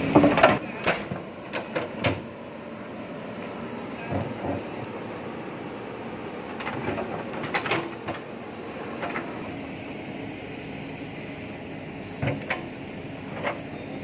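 JCB 3DX backhoe loader's diesel engine running steadily while its steel bucket scrapes and knocks against stones and earth in a trench. Sharp clanks come in a cluster near the start, again about halfway through, and a few more near the end.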